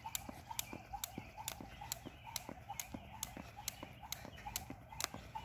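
A jump rope slapping the asphalt on every turn, a steady run of sharp ticks about four a second.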